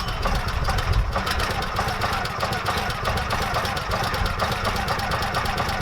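Portable band sawmill's gasoline engine running steadily with a fast, even beat.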